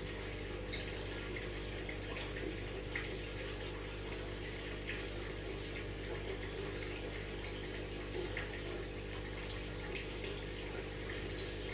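Aquarium water circulating steadily, trickling and splashing with faint small drips, over a steady low hum.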